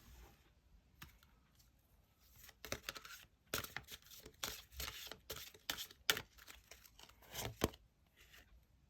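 Tarot cards being handled and shuffled: a run of quick papery rustles and short slaps starting a couple of seconds in, with two sharper snaps in the second half.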